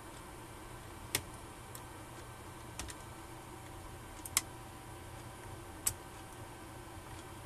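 Small sharp plastic clicks, four of them about a second and a half apart, as a precision screwdriver tip pushes back the little plastic tabs holding a laptop keyboard in place, over a steady low room hum.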